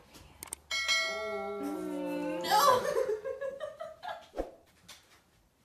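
A drawn-out pitched sound that steps down in pitch, breaking into laughter about two and a half seconds in.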